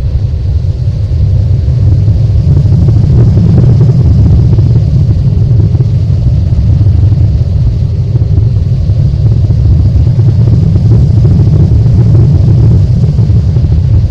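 Steady low rumble of a Boeing 787 airliner heard from inside the cabin during landing: engine and airflow noise.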